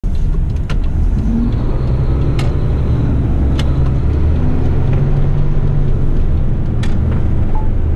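Heavy diesel truck running on the road: a steady low engine and road rumble, with a few sharp clicks or rattles.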